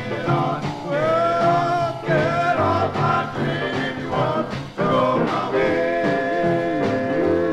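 1950s R&B vocal group singing with band backing, played from a 78 rpm shellac record. About five seconds in, the sound dips briefly before held notes come in.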